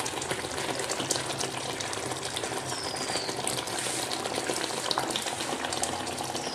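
Pot of chicken palak kofta gravy frying and bubbling on a gas stove: a steady hiss.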